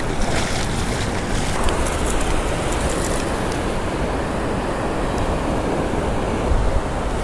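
Ocean surf washing over the sand in a steady rush, with wind on the microphone.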